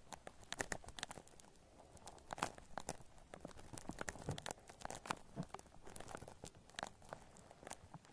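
Shaving cream foam worked close to a binaural microphone: a soft, irregular run of crackling clicks and pops.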